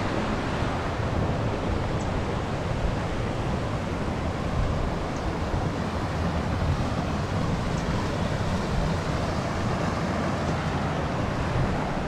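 Wind buffeting the microphone: a rough, uneven low rumble over a steady rushing hiss.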